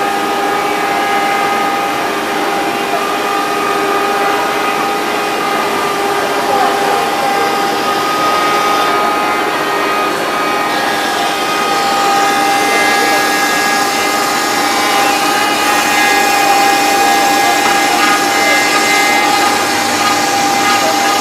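CNC router spindle running with a steady whine while its bit cuts into wood, hollowing out a carving, with a continuous rasping cutting noise under the tone.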